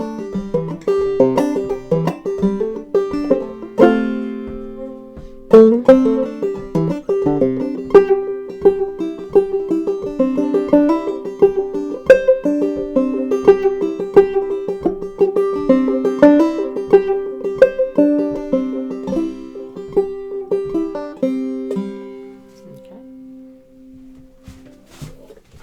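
Five-string banjo played clawhammer style, a lively fiddle tune in C with a steady rhythm of plucked notes over the ringing drone. About 22 seconds in the playing stops and the last notes ring out and fade.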